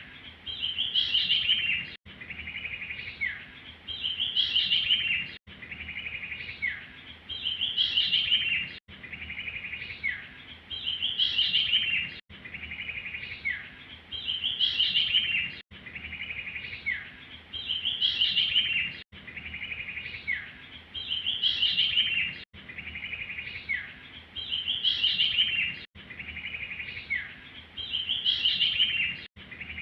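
Looped recording of a small songbird's call, the bird Indonesian bird-catchers call sirtu, played as a lure. Each phrase is a quick high trill followed by a short falling note, and it repeats about every three and a half seconds with a brief cut between repeats.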